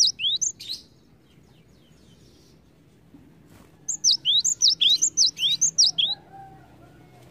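Cinereous tit (gelatik batu) singing: rapid series of high, clear whistled notes, each sweeping down in pitch, repeated several times a second. One phrase ends just under a second in, and another runs from about four to six seconds, with a pause of about three seconds between them.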